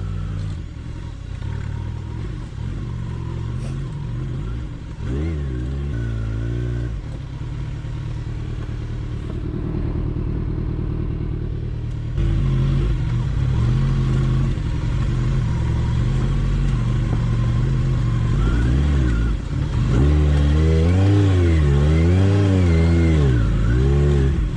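Kawasaki Ninja 1000's inline-four engine pulling up a steep, rocky dirt track, the revs rising and falling with the throttle as the rider works over stones and pebbles. It gets louder about halfway through, and near the end the revs swing up and down quickly several times.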